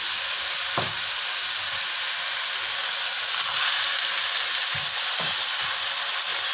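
Fish and red bell pepper strips sizzling steadily in hot oil in a non-stick wok, stirred with a wooden spatula, with a few light knocks of the spatula against the pan.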